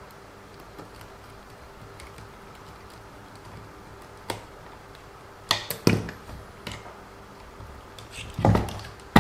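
Scattered clicks and knocks of small plastic RC car suspension parts and tools being handled during reassembly: one sharp click about four seconds in, a cluster of clacks near the middle, and a heavier knock near the end.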